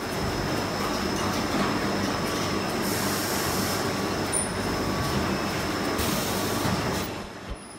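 Automatic film-cutting machine running: a steady mechanical rattle and hum from its rollers and drives, with a faint steady high whine. It drops off briefly near the end.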